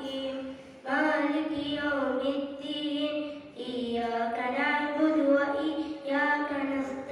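A boy singing solo and unaccompanied into a handheld microphone, in long held notes, with two short breaks for breath, about a second in and midway.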